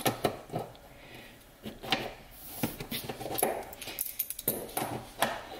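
AN hose-end socket being twisted onto braided hose while pressed against a wooden workbench: irregular scraping and small metallic clinks as it starts onto the hose.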